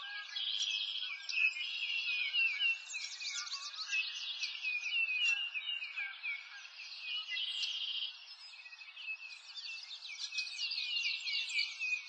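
A chorus of songbirds, many short chirps and trills overlapping without a break, over a soft steady hiss.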